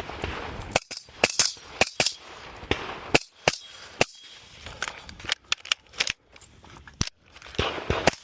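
Rifle fired about ten times in quick, irregular succession: single shots and close pairs, each a sharp crack, during a timed match stage.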